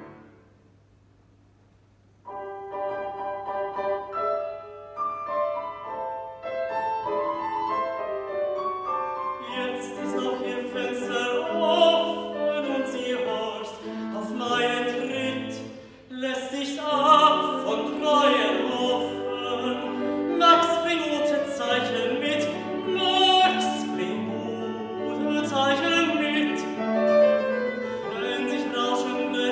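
Operatic tenor singing with grand piano accompaniment. The piece opens on a near-silent pause of about two seconds, then the piano plays alone. The tenor voice comes in about ten seconds in and sings over the piano.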